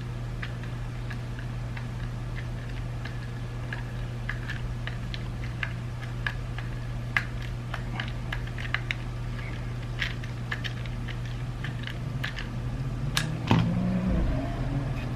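Small plastic parts of a BMW iDrive controller being handled during re-assembly: scattered light clicks and taps, irregular, with a louder bout of handling about 13 seconds in, over a steady low hum.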